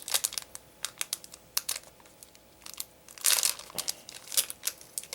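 Foil trading-card booster pack wrapper being crinkled and torn open by hand: irregular crackles and crinkles, loudest in a short burst of crackling just after three seconds in.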